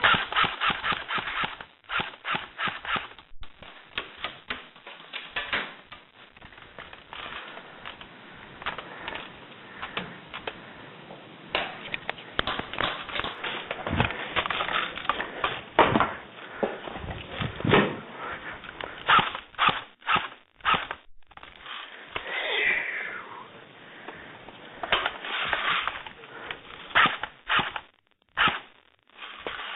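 Airsoft guns firing: runs of sharp, rapid clicking pops in bursts, with single shots in between.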